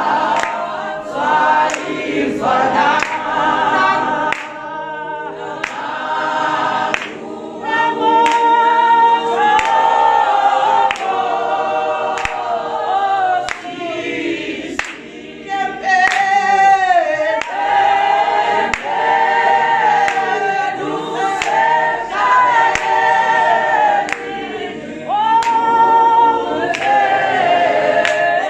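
A church choir singing a gospel song, many voices together, over a steady beat of sharp strikes.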